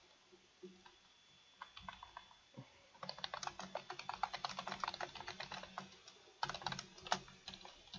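Typing on a computer keyboard: a few scattered keystrokes at first, then fast, steady typing from about three seconds in, with a brief pause just past six seconds before it picks up again.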